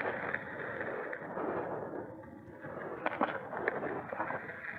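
Electric mountain bike riding along a dirt trail: a steady rush of wind and tyre noise, with a couple of sharp knocks and rattles from the bike over bumps about three seconds in.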